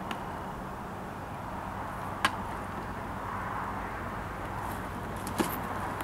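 Hand screwdriver work on a plastic RV toilet: a few sharp clicks and taps, the loudest about two seconds in and another near the end, over a steady background hiss.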